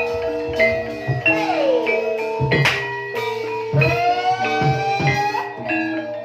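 Music with ringing plucked or struck notes, several of which slide up or down in pitch, over occasional low drum hits.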